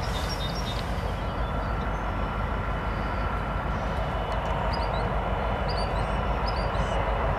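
Diesel freight locomotives, a Canadian Pacific unit leading and a Norfolk Southern unit trailing, running steadily past as the train rolls across the bridge: a low, even rumble with a thin steady whine over it.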